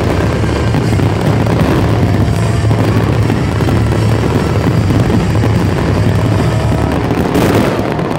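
Dense fireworks barrage: a steady rumble of overlapping booms and crackle from rockets and bursting shells, with a sharper burst near the end.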